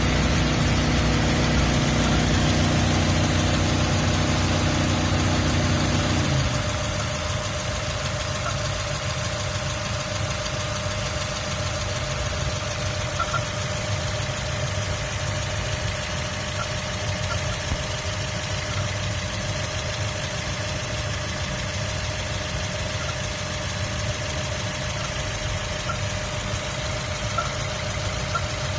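2003 Mazda Miata MX-5's 1.8-litre four-cylinder engine idling; about six seconds in its note drops and gets quieter. Over the idle come faint, short, high chirps at uneven gaps of one to a few seconds, the chirp noise the owner is recording.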